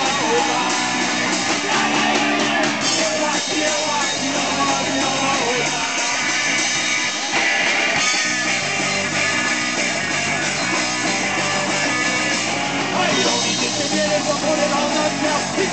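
Punk rock band playing live: electric guitar, bass and drums.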